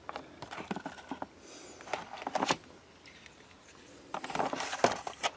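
Steel spade bits and their hard plastic case being handled: scattered light clicks and rattles with short scraping rustles, busiest about two seconds in and again near the end.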